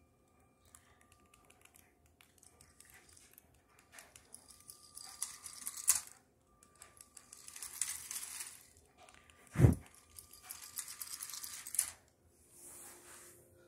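Electric motor of a Lego steam locomotive running in spells, with the plastic wheels and rods clicking and clattering rapidly over Lego track. One sharp thump a little over halfway.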